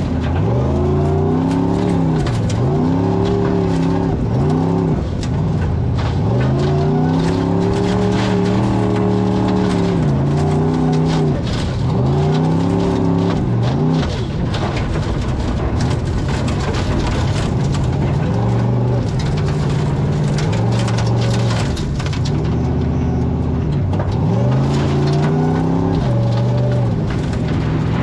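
Formula Offroad buggy's engine heard from inside the cockpit, revving up and dropping back over and over in short surges, with a lull of lower, steadier running in the middle.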